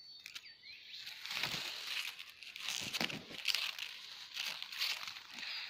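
Dry Mombasa grass mulch rustling and crackling as it is disturbed, an irregular run of crisp crinkles.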